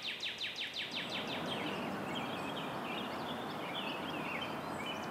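Birds singing outdoors: a rapid run of high, down-slurred notes, about six a second, fades out about a second and a half in, followed by scattered short chirps over a steady background hiss.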